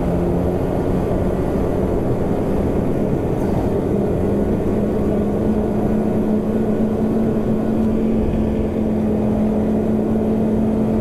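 Two-stroke snowmobile engine running steadily while riding, its pitch rising slightly a few seconds in and then holding even.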